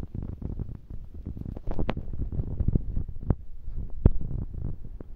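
A kitten chewing anchovy heads, with irregular wet crunches and low thumps and a few sharper cracks about two, three and four seconds in.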